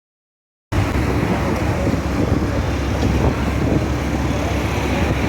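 Steady rumble of outdoor traffic with wind buffeting the microphone, cutting in abruptly less than a second in after dead silence.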